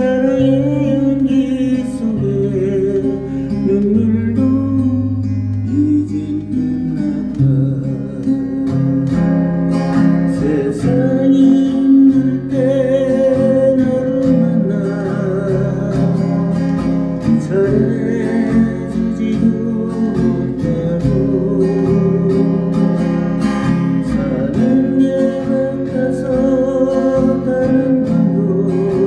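Acoustic guitar playing a ballad, strummed and picked, with a held melody line that wavers with vibrato over steady low notes.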